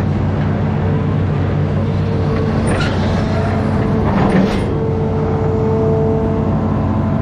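Amphibious excavator's diesel engine running steadily, with two short knocks about three and four seconds in.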